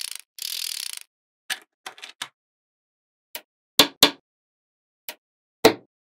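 Small magnetic balls clicking together: a rapid rattling clatter of many balls for the first second, then single sharp clicks as balls snap onto one another. The loudest are two close together about four seconds in and one near the end.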